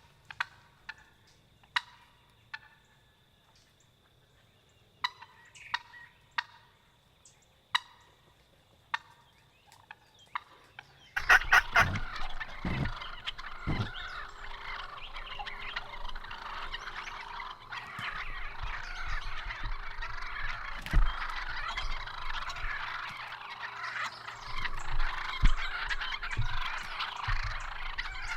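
Wild Osceola turkeys gobbling: scattered short calls at first, then, about eleven seconds in, an abrupt change to a dense continuous clamour broken by a few low thumps.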